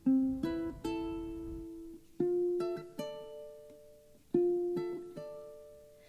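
Background music: a gentle plucked-string melody, ukulele or guitar, with notes in short phrases that ring out and fade.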